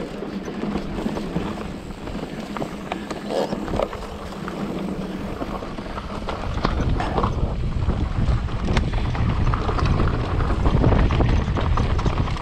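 Mountain bike riding a rough trail: wind rushing over the microphone and tyres rumbling, with frequent knocks and clatter from the ground and bike, growing louder from about halfway.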